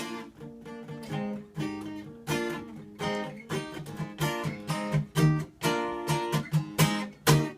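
Acoustic guitar strummed in a steady rhythm of chords, an instrumental break in the song with no singing.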